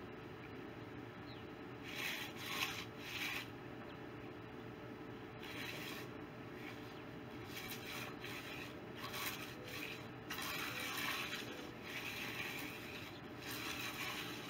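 A hand finishing tool scraping and rubbing along the edge of a freshly poured concrete slab, in several runs of strokes separated by short pauses.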